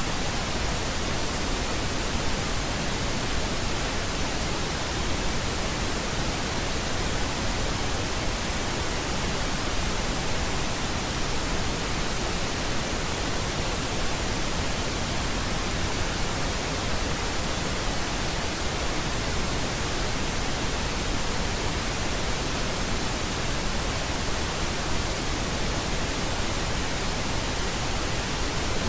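Steady synthetic pink noise: an even, unchanging hiss spread across all pitches, with no events or variation.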